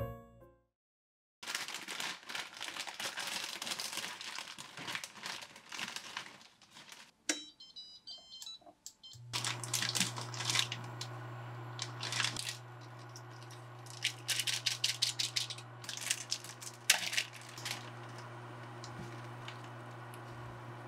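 A plastic instant-ramen packet crinkling and being torn open in repeated bursts, over the steady low hum of an induction cooktop that starts after a few short electronic beeps. A sharp knock comes near the end.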